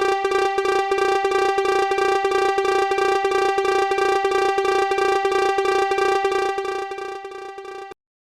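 Level-crossing warning alarm ringing one steady electronic tone in rapid, even pulses, about seven a second. It fades away over the last second or so and cuts off just before the end.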